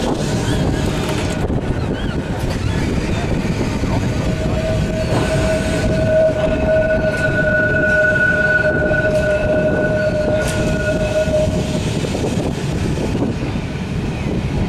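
Blackpool Boat tram running on street track, heard from its open deck: a steady rumble of the running gear, with a long steady squeal from the wheels on a curve starting a few seconds in and lasting about eight seconds.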